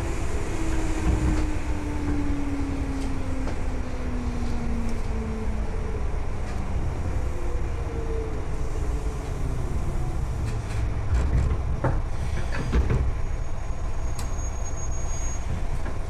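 JR West 201 series commuter train's thyristor chopper control whining inside the car over the rumble of wheels on rail. Its tone falls steadily as the train slows for the station. There are a few sharp clanks about twelve seconds in.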